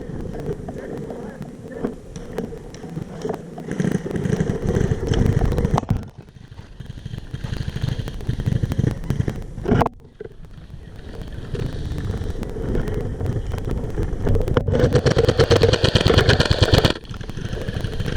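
Airsoft electric guns firing in rapid full-auto bursts, a rattle of fast clicks, with the longest and loudest burst near the end.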